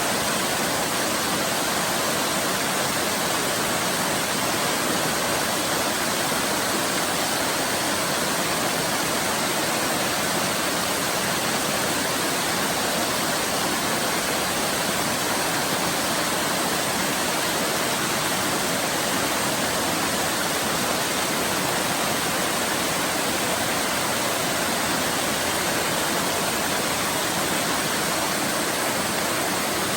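Waterfall, water pouring and splashing in a steady, even rush.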